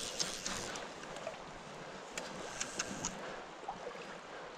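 Shallow stream water running and lapping around the wading angler, with a few brief sharp ticks near the start and again about two to three seconds in.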